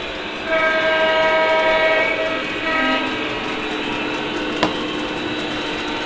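Model diesel locomotive's onboard sound system sounding its horn, a long blast and then a short one, over the steady running sound of the O-gauge train on the track. A single sharp click comes near the end.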